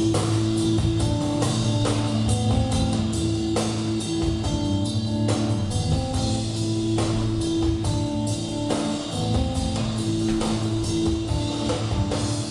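Dance music with a steady drum beat and a repeating melodic line.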